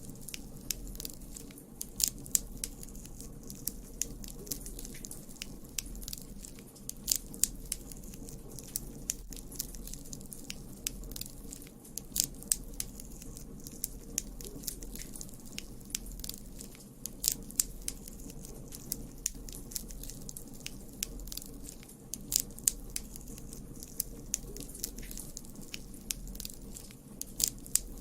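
Campfire burning: a steady low rumble of flames with irregular sharp crackles and pops of burning wood, some louder snaps every second or two.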